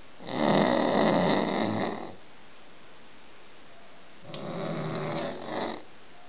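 A man snoring heavily while sleeping off a night of drinking: two long snores about four seconds apart, the first louder.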